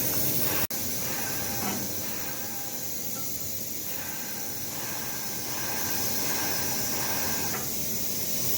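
Steady, loud hissing background noise of an industrial plant, with faint distant voices at times. The sound drops out for a moment just under a second in.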